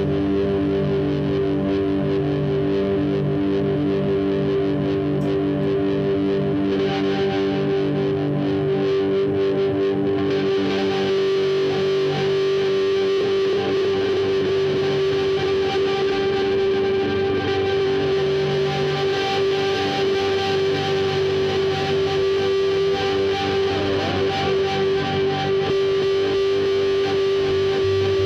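Live band's instrumental passage: electric guitar played through effects pedals over a steady held drone note.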